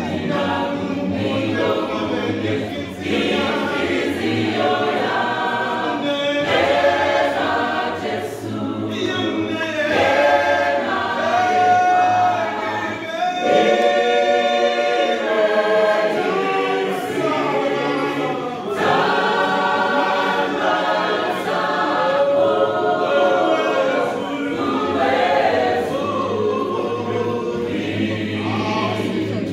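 Mixed-voice gospel choir singing a cappella in several-part harmony, with men's and women's voices together.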